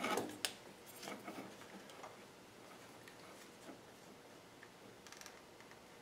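Faint, scattered clicks and light taps of hands handling stiff electrical wires and a small wooden light-socket mount, a few sharper clicks in the first second or two, then only occasional soft ticks.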